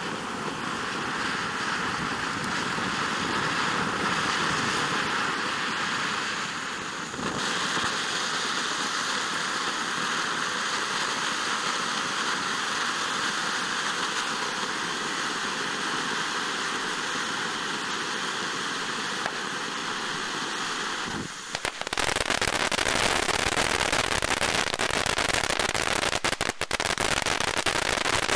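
Fountain firework hissing steadily as it sprays sparks, with a change in the hiss about seven seconds in. About 22 seconds in it breaks into a louder, dense crackling of jumbo crackle stars.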